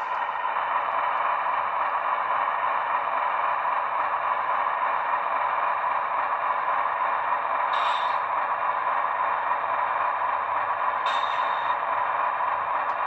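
Model locomotive's sound decoder playing a GE Tier 4 diesel engine running steadily through its small onboard speaker, thin and lacking bass. Two brief hissing bursts cut in partway through.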